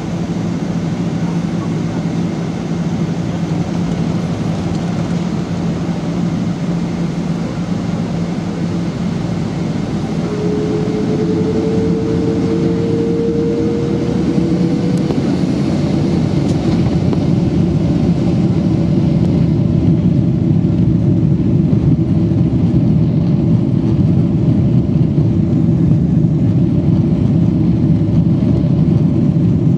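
Jet airliner engines and cabin noise heard from inside the passenger cabin as the plane taxis onto the runway. The engine noise grows louder in the second half as thrust builds for takeoff. About ten seconds in, a whine rises slightly in pitch for around five seconds.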